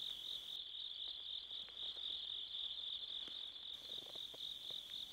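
Crickets chirping in a steady, high-pitched night chorus, with a few faint ticks.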